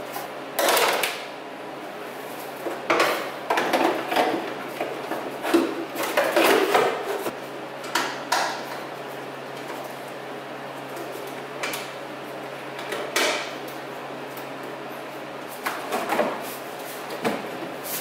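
Irregular clicks, knocks and clatter of parts being handled and fitted by hand in a car's open engine bay, over a steady low hum. The sharpest knocks come in a cluster a few seconds in, with scattered ones later.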